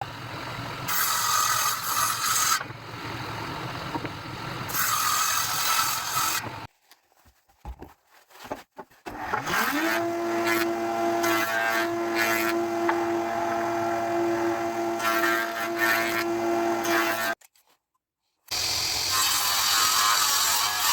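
Woodworking power tools machining wood in several short takes: noisy cutting that comes and goes, a short pause with a few knocks, then a machine spinning up to a steady hum with bouts of cutting over it, a brief silence, and noisy cutting again.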